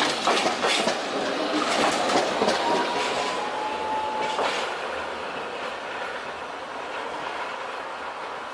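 Hankai Tramway Sakai Tram 1001, a low-floor articulated tram, passing close by and pulling away. Its wheels click sharply over rail joints in the first few seconds, and a thin wheel squeal comes in for a couple of seconds midway. The running sound then fades as it recedes.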